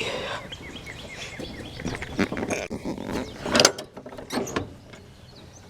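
Irregular metallic clicks, scrapes and knocks from hands working at a riding lawn tractor's drive belt, pulleys and tensioner spring, with a few louder clanks in the middle.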